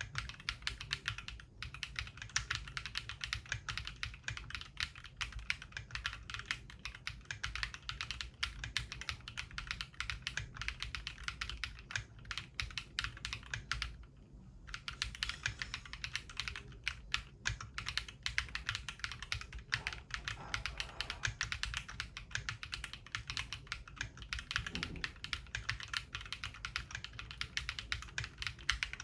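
Continuous fast typing on a Mongeek M5 mechanical keyboard with Akko Piano switches that are fully lubed (Krytox 205) and filmed, Cherry screw-in stabilizers lubed, and foam-dampened inside the case. The keystrokes come in a dense stream, with one brief pause about halfway through.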